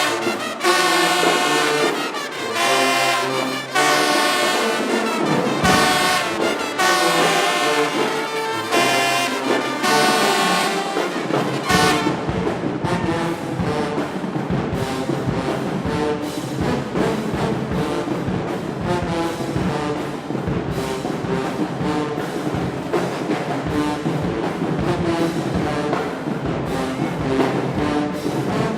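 Marching band brass section playing loud sustained chords with trombones and trumpets. About twelve seconds in, the drums join with a steady beat under the horns.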